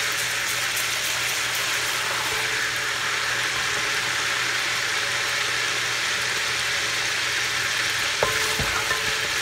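Ginger and garlic paste frying in a deep layer of hot oil in an aluminium pot, sizzling steadily, with a wooden spoon stirring through it at the start. A single knock about eight seconds in.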